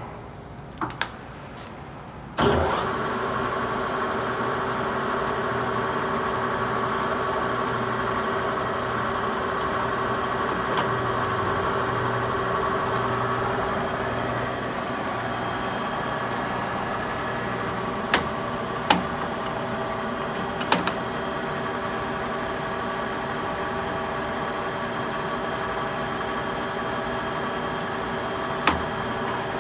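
Chubu Koki LL-1000 lathe starting up about two seconds in, then running steadily with a humming, geared whine. A few sharp clicks come in the second half.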